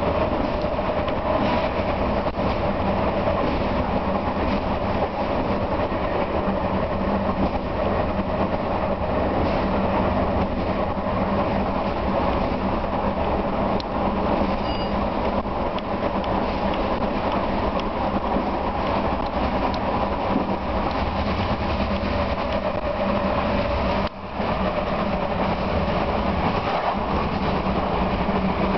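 Class 750.7 diesel locomotive with its Caterpillar engine running under way, a steady engine hum over continuous wheel-and-rail noise; the sound dips briefly about 24 seconds in.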